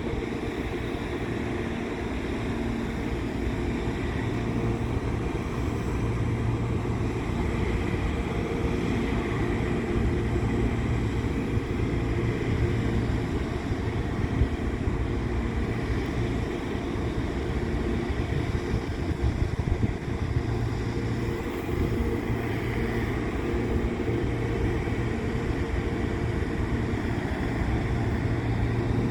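Steady rumble of a train with a low diesel engine drone, and wind on the microphone.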